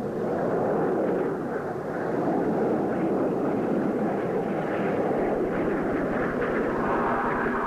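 Canadair Tutor jet trainers flying by, their single turbojet engines making a steady rushing jet noise.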